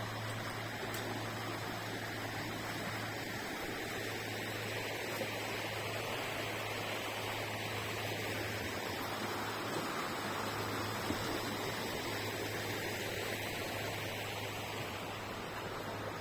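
River water rushing steadily, a continuous even noise, with a low steady hum underneath.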